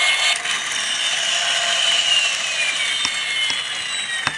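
Small electric motor of a Matchbox Elite Rescue Strike Hawk toy helicopter whirring as it spins the rotors. Its whine slowly falls in pitch as they wind down, with a few light clicks near the end.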